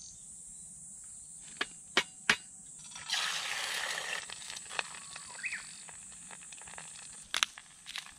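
An egg is cracked on the rim of a small metal camping pot with two sharp knocks about two seconds in. A burst of hiss and bubbling follows as it goes into the simmering ramen broth, and a small grinder gives light clicks near the end. A steady high drone of insects runs underneath.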